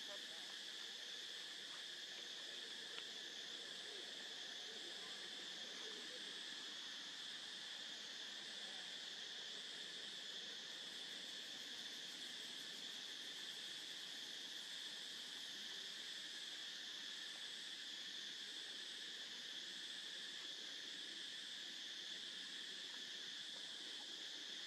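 Steady chorus of forest insects: a constant high-pitched drone, with a higher layer that swells and fades in a slow, even rhythm.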